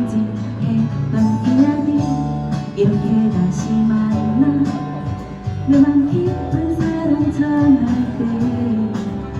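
Live acoustic song: a steadily strummed acoustic guitar under a melody of held notes that slide from one pitch to the next.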